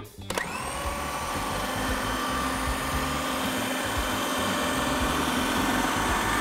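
Electric food processor's motor starting up about a third of a second in, whining up to speed, then running steadily while it chops vegetables, minced beef and egg white into a paste.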